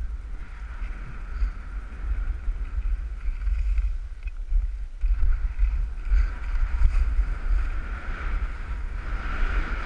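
Wind noise buffeting the microphone of a skier's action camera while skiing downhill, over the steady hiss of skis sliding and scraping on packed snow, swelling and easing with the turns.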